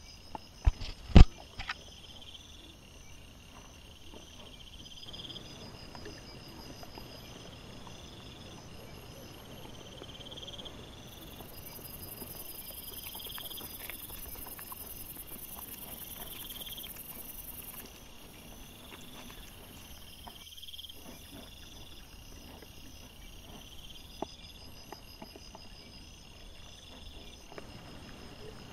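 Insects chirping in an even rhythm, one high chirp about every second over a faint trill, above a low rustling. A few sharp, loud knocks come about a second in.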